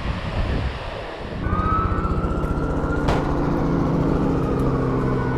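Wind noise, then about a second and a half in an engine starts to be heard, steady and droning, with a high whine that rises slightly and then falls slowly.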